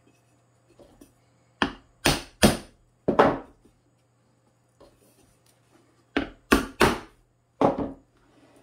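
Eight sharp knocks on wood in two groups of four, a few seconds apart, each ringing briefly: glued pine box pieces being tapped into place.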